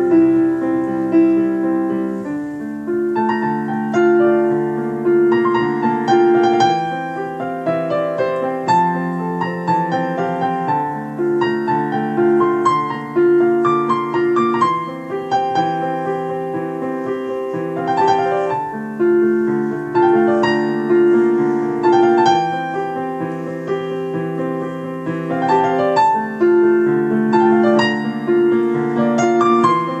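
Digital piano played continuously: a melody over held low chords, recorded through a phone microphone with a hiss that the uploader blames on the phone's poor audio quality.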